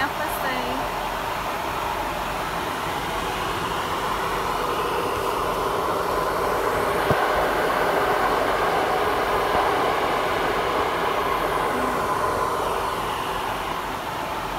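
Steady engine and airflow noise of a jet airliner in flight, heard in the cabin beside the door. It swells a little in the middle, and there is a single click about seven seconds in.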